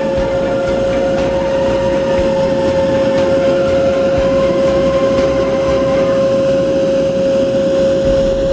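Road sweeper truck's high-pressure washing system running: a steady machine drone with one constant whine, with the hiss of a hand-held lance spraying a high-pressure water jet onto wet asphalt.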